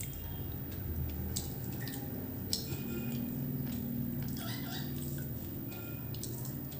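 Quiet eating sounds: a few light clicks and mouth noises over a low, steady hum.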